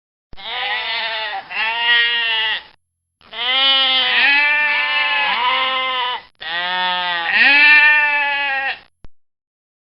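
Goat bleating: long, wavering bleats run together in three loud bouts, with short pauses between them.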